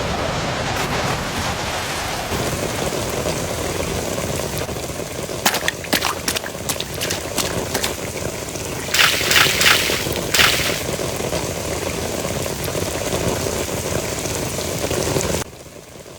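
Heavy rain falling steadily, with a scattering of sharp taps and cracks around the middle; it cuts off abruptly near the end, leaving a much quieter hush.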